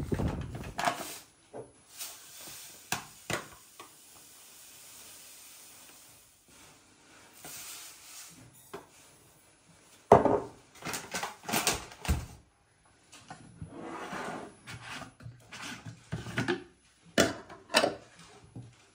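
Handling noises: a few soft knocks and hands brushing together, then clinks and sharp knocks of a steel saucepan, a glass mug and a plastic milk jug being moved on a kitchen countertop.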